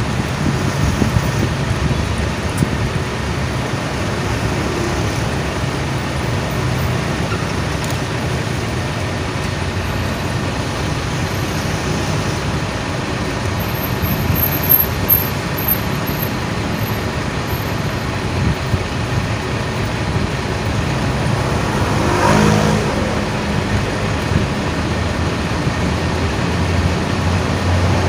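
Steady rumble of motor vehicles and traffic, with one vehicle passing more loudly about three-quarters of the way through.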